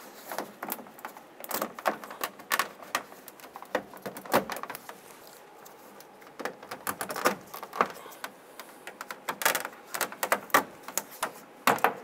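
Plastic push-pin retainers being pressed into a liftgate's interior trim panel: a run of short, irregular plastic clicks and taps as each pin is pushed and seated by hand.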